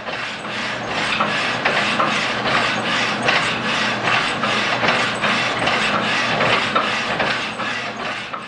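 Belt-driven die filer running, its reciprocating file working up and down with a steady rhythm of rasping strokes.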